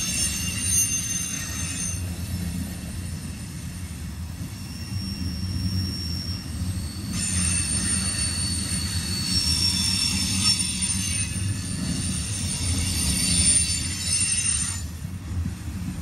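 Freight train of empty tank cars rolling past, the wheels rumbling steadily on the rails with high-pitched wheel squeal over it. The squeal fades a couple of seconds in, comes back strongly about halfway through, and cuts off suddenly near the end.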